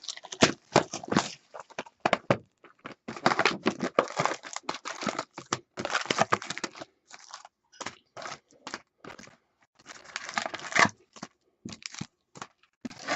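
Trading-card packaging being torn open and crumpled by hand: a run of irregular ripping and crinkling rustles with short pauses between them.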